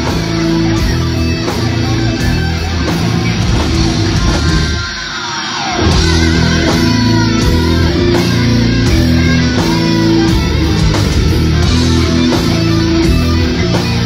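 Death metal band playing live with distorted electric guitars, bass and drums. About five seconds in the band drops out for a second under a falling guitar sound, then the full band comes back in.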